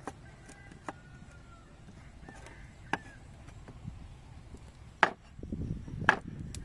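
Meat cleaver chopping catfish into pieces on a thick round wooden chopping block: about six sharp chops at uneven intervals, the two loudest near the end.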